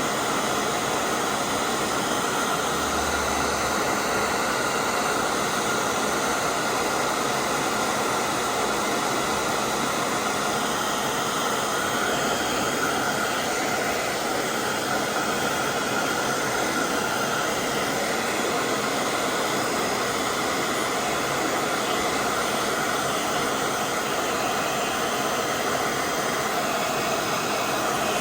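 A steady rushing noise that holds one level throughout, with no speech.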